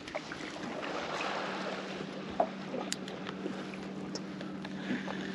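Wind and water noise around a small open boat, with a steady low hum and a few faint clicks and knocks from handling a spinning rod and reel.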